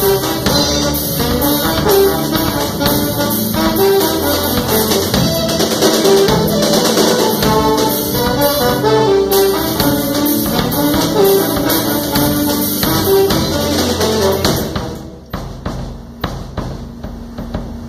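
Band rehearsal: a trombone playing a melodic line over a drum kit and the rest of the band. About fifteen seconds in, the full band drops back and the music goes much quieter, with drums still sounding.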